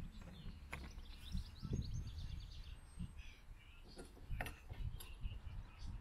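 Small birds chirping faintly, mostly in the first couple of seconds, with a few sharp clicks from metal parts being handled about a second in and again past the middle.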